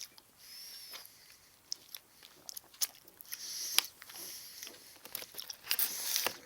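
Close-up mouth sounds of someone eating a Milky Bar ice lolly: biting and chewing with irregular sharp wet clicks and short hissy sucks.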